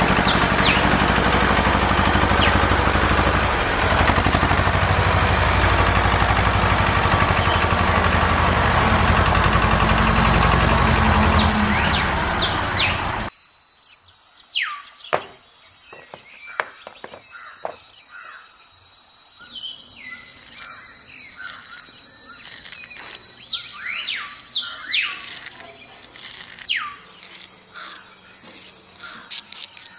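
A loud, steady whirring noise that cuts off abruptly about a third of the way through, followed by birds chirping repeatedly over a quiet background with a few light clicks.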